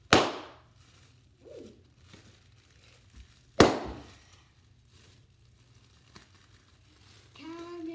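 Plastic bubble wrap twisted and squeezed by hand, giving two loud, sharp pops about three and a half seconds apart, with faint crinkling of the plastic between.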